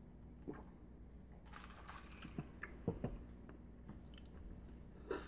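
Faint swallowing from drinking out of a cup, with a few small scattered clicks and taps from handling the cup and a vape mod.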